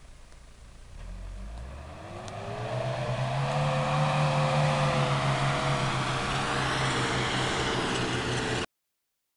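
Off-road SUV's engine revving under load as it drives through a muddy rut. The engine note rises about two seconds in, holds loud and steady, then cuts off abruptly near the end.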